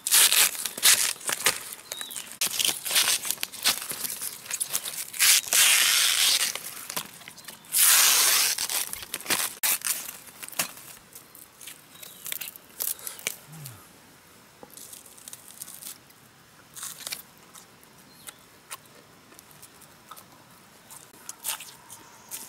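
Tearing and crackling as the sheaths of a bamboo shoot are stripped and cut with a machete, in rapid bursts for about the first ten seconds with the loudest tearing around the middle. After that it goes quieter, with only scattered clicks from handling the split strips.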